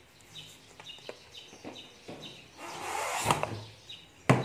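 A metal spoon clinks sharply once against a wok near the end, after scattered small clicks and a rush of noise that swells and fades over about a second in the middle; faint bird chirps sound in the background.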